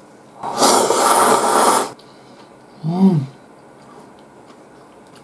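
A person slurping a mouthful of tsukemen noodles in one loud, airy pull lasting about a second and a half, then a short closed-mouth hum of "mm" while chewing, about three seconds in.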